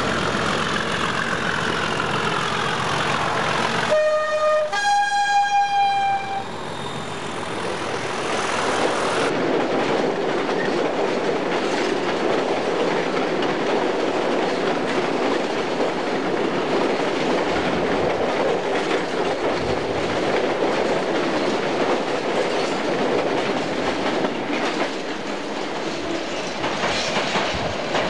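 A British Rail Class 37 diesel locomotive passes with its engine note falling, then sounds its two-tone horn about four seconds in: a short lower note followed by a longer higher one. After that comes a long, steady clatter of freight wagons rolling past over the rail joints.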